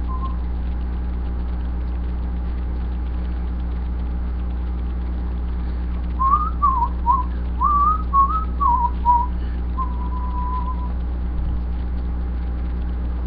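A man whistling a short tune: a run of quick rising and falling notes starting about halfway in, ending in one held note. A steady low hum runs underneath.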